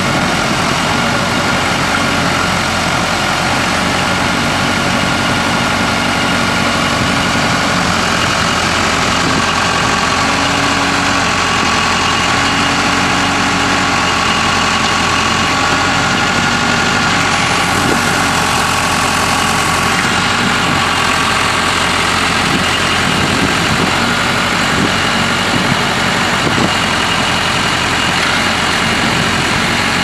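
Case 580 Super L backhoe's Case 4-390 four-cylinder diesel engine idling steadily.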